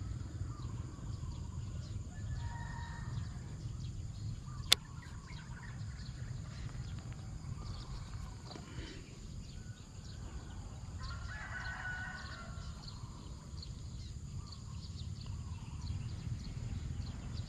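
A rooster crowing faintly, once about two seconds in and again about eleven seconds in, over a steady low rumble. A single sharp click about five seconds in.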